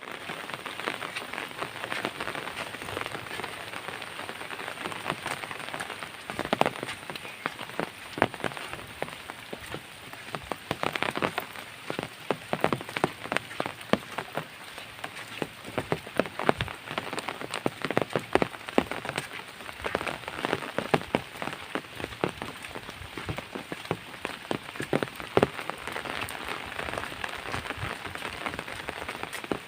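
Soft rain falling steadily, with many sharp individual drop impacts scattered irregularly through the hiss.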